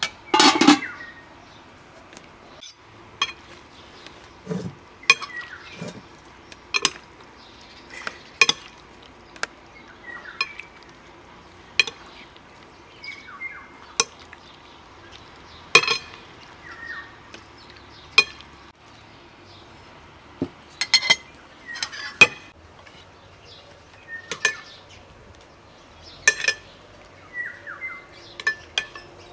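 Metal ladle and spoons clinking against an aluminium pot, a glass dish and ceramic plates while food is dished up, in scattered single clinks. The loudest is a metal clank in the pot about half a second in. Birds chirp now and then between the clinks.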